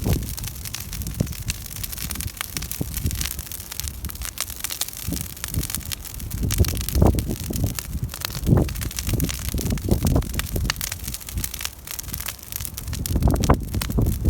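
Wood campfire crackling, with frequent sharp pops and snaps over uneven low rumbles that swell a few times.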